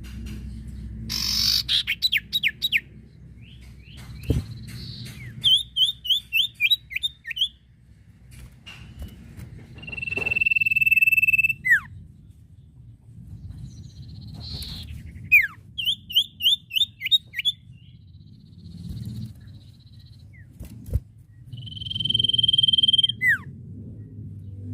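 Common iora (cipoh, sirtu) singing. Fast runs of sharp chirps alternate with long, steady whistles that end in a quick downward slur, and the pattern repeats about every ten seconds over a low background hum.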